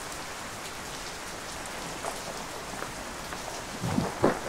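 Steady rain falling, a constant even hiss of drops. A couple of short louder sounds come about four seconds in.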